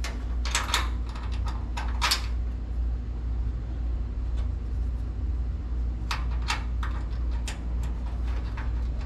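Short metallic clicks and scrapes of a bolt, washers and nut being handled and fitted by hand, a few in the first two seconds and a few more about six seconds in, over a steady low hum.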